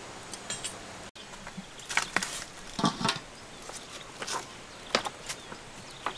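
Wood fire crackling under a lidded wok: irregular sharp pops and a few duller knocks over a faint background hiss.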